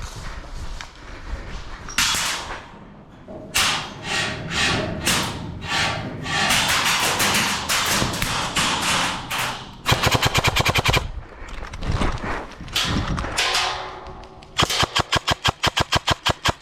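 Airsoft guns firing in rapid full-auto bursts, with a short burst about ten seconds in and a longer rapid burst near the end.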